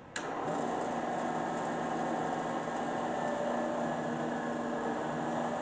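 Clausing Kondia FV-1 vertical mill's spindle motor switched on in low range: it comes on with a sudden click just after the start, spins up within about half a second, then runs at a steady hum with a whine.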